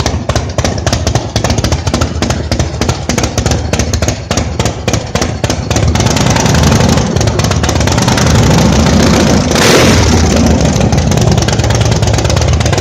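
Harley-Davidson Shovelhead V-twin engine running with a rapid, uneven beat of exhaust pulses. About halfway through it picks up to higher revs and a louder, steadier note.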